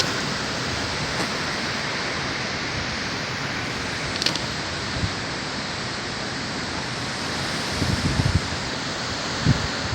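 Heavy rain in a big storm: a steady, dense hiss, with short low rumbles about 8 and 9.5 seconds in.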